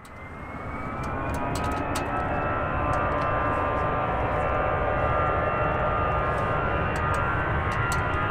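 Airbus A320-214's CFM56 turbofan engines spooling up for take-off: a whine rising in pitch over the first few seconds above a loud jet rumble with many fan tones, then running steadily at high power.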